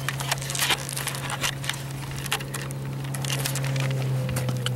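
A steady low motor hum, rising slightly near the end, with irregular clicks and crackles over it.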